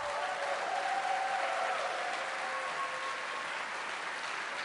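Audience applauding, a steady clapping that eases off slightly toward the end.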